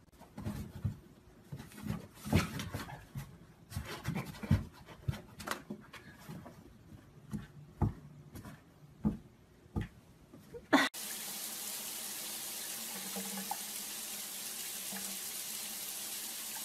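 Irregular light taps and knocks of a cat's paws striking a cardboard box. About eleven seconds in, this cuts to the steady hiss of water running from a tap into a bathtub.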